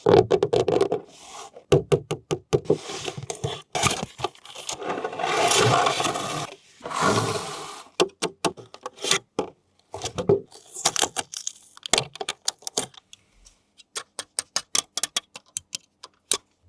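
Hands unboxing and handling a toy RC car and its packaging: plastic and cardboard scraping and rattling for the first several seconds, then a long run of sharp separate clicks.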